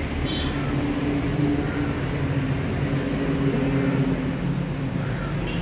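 Steady low mechanical hum with a droning tone.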